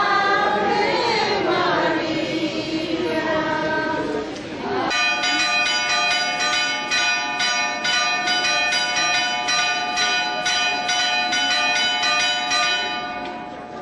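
Voices of a procession crowd singing a hymn together, cut off about five seconds in. Church bells then ring from the bell tower in quick, even strikes that fade near the end.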